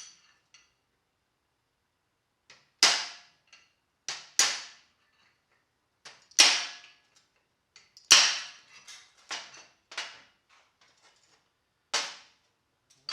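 Hammer blows knocking old bushings out of a 1971 Camaro door hinge: about ten sharp metallic strikes at irregular intervals, some in quick pairs, each ringing briefly.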